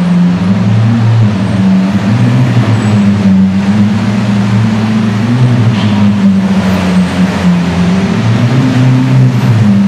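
Lamborghini Aventador's V12 idling as the car pulls slowly forward, its pitch rising and falling a little with light throttle, echoing in an underground car park.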